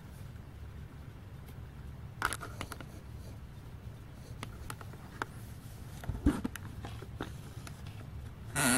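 Handling noise: scattered small clicks and knocks, with a louder scraping knock near the end, over a steady low hum.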